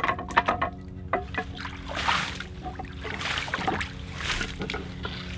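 A hand scrubbing slime off a rock in a shallow ceramic bird bath, the water sloshing and splashing. The splashing comes in three swishing surges in the second half.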